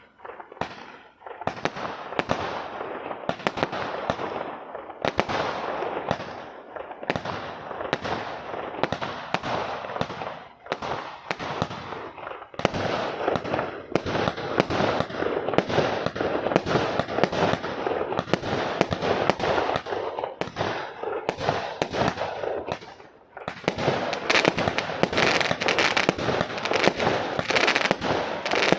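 Celtic Fireworks Time Lord 126-shot barrage cake firing a rapid, continuous string of shots and bursts. There are brief lulls about twelve and twenty-three seconds in, then a denser stretch near the end.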